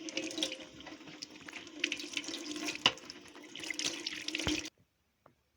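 Water running from a tap into a sink, splashing, then shut off abruptly near the end.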